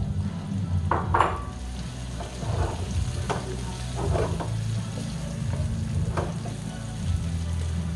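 Sliced onions sizzling in oil in a non-stick wok while a wooden spoon stirs and scrapes them, in short strokes every second or so. A steady low hum runs underneath.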